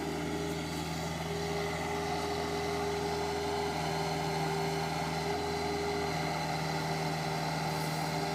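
Excavator engine running steadily under load, its note rising slightly about a second in.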